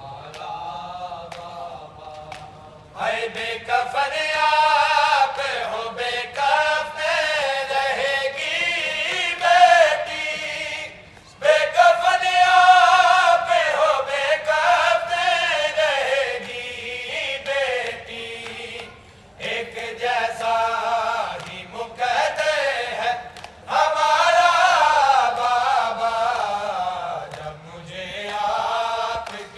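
Men's voices chanting a noha, an Urdu mourning lament, in long melodic sung phrases with short breaks between lines. A softer line opens it, and the chant grows louder about three seconds in.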